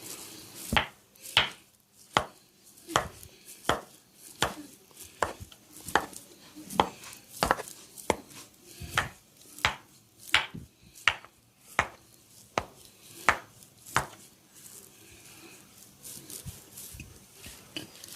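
Hands striking the body in a percussive massage, a steady run of sharp slaps about three-quarters of a second apart that stops about fourteen seconds in, leaving soft rubbing and rustling.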